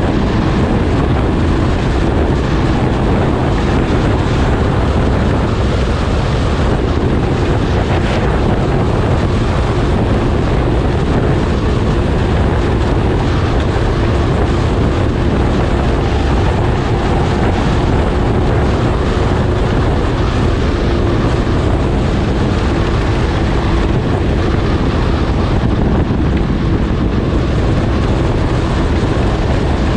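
Snowmobile running steadily, with heavy wind noise on the microphone.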